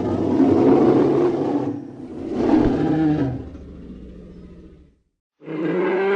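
A roar sound effect in two long swells, the second trailing off and stopping about five seconds in.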